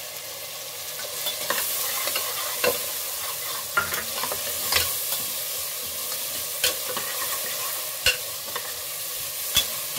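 Onions, tomatoes, green chillies and freshly added ginger-garlic paste sizzling in hot oil in a pressure cooker, stirred with a metal slotted spoon. A steady sizzle runs under sharp knocks of the spoon against the pot every one to two seconds.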